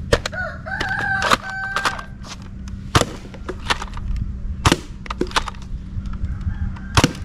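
Nerf foam-dart blasters firing: sharp plastic snaps and clacks of priming and shooting, irregularly spaced a second or two apart, over a steady low hum.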